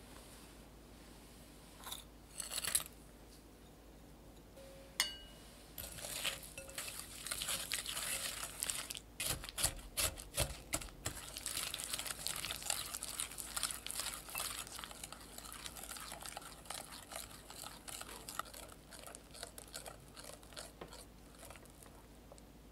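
A few light clinks, then from about six seconds in a wire whisk beating egg yolks and oil in a glass bowl: quick, dense ticking and scraping of the wires against the glass. It is busiest near the middle and eases off toward the end.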